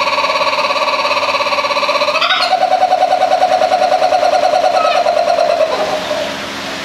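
Laughing kookaburra calling: a rapid, rolling, pulsed laugh that steps up to a higher run about two seconds in and fades out near the end.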